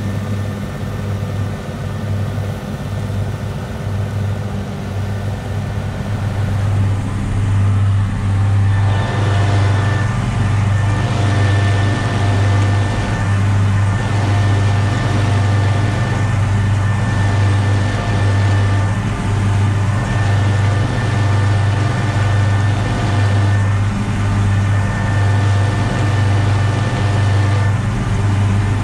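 Massey Ferguson 6180 tractor's straight-piped six-cylinder diesel running steadily under load while driving disc mowers. About eight seconds in, heard from inside the cab, it becomes louder and a steady high whine joins it.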